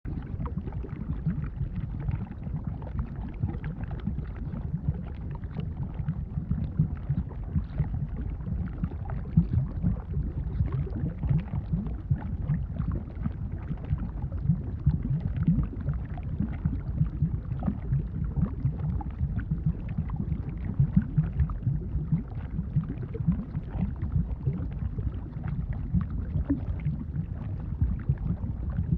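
Bubbling lava sound effect: a steady, low, thick bubbling and gurgling with many small pops packed closely together.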